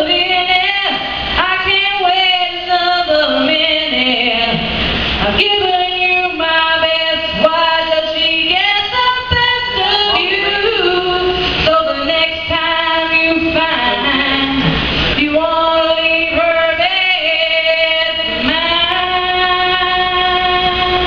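A woman singing solo and unaccompanied, with no backing music, holding long sustained notes between shorter sung phrases.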